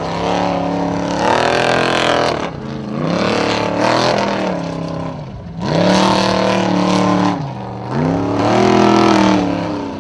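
Off-road hill-climb buggy's engine revving hard under load as it claws up a steep dirt slope. The pitch climbs and drops about four times as the revs surge and fall, over a hiss of spinning tyres and flying dirt.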